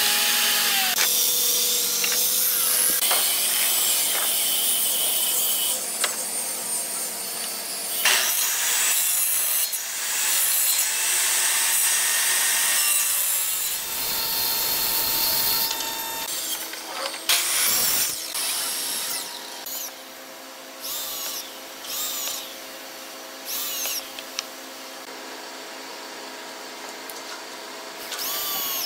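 Power tools working hardwood. About the first half is a loud, continuous stretch of machine cutting noise with a high whine. After a few sharp knocks, a cordless drill runs in four short bursts of about a second each near the end.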